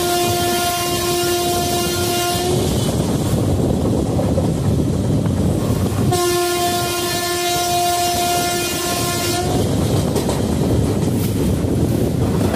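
Indian Railways locomotive horn blown in two long steady blasts of about three seconds each. The first is already sounding at the start, and the second comes about six seconds in. Between and under them runs the steady rumble and wheel clatter of the moving train.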